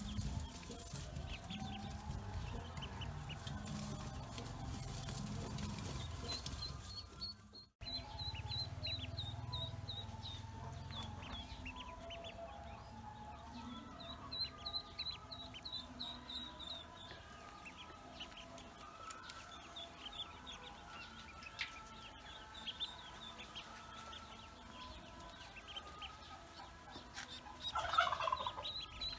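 Pekin and black ducklings peeping: runs of short, high, repeated peeps, broken by a brief gap about a quarter of the way in, with a louder, lower call near the end.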